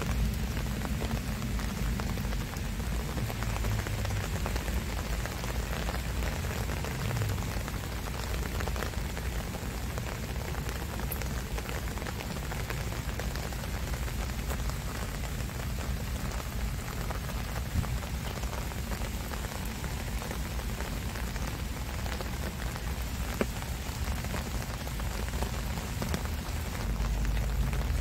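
Steady rain falling on garden foliage and ground, with a low rumble underneath and a few louder single drops.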